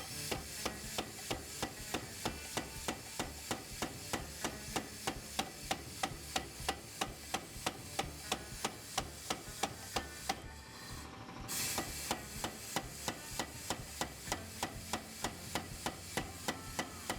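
Rapid, evenly spaced hammer blows, about three a second, on a hot W2 steel knife blank as the blade is drawn out to widen it. There is a brief break with a hiss about ten seconds in.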